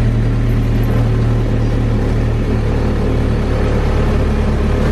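A motor vehicle's engine running steadily, a low even drone heard from aboard the vehicle.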